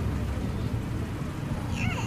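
A cat meows once, briefly, near the end, over a steady low hum.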